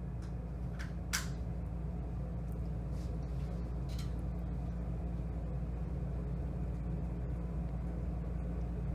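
Steady low mechanical rumble, with a few light clicks in the first four seconds.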